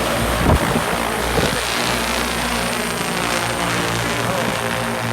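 XAG P100 agricultural spraying drone's rotors running loud and steady as it lifts off, a multi-tone propeller drone with two low thumps in the first second and a half.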